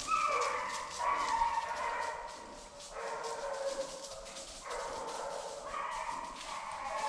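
A pack of hunting hounds baying on a deer's trail, several long drawn-out voices overlapping and going on without a break.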